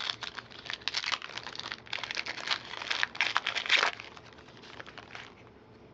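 Trading-card pack wrapper crinkling as it is torn open and handled: a run of dense crackles that stops about four seconds in.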